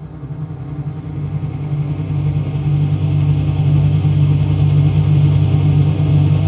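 A low, steady drone that swells louder over the first few seconds and then holds, deepest and strongest in the bass.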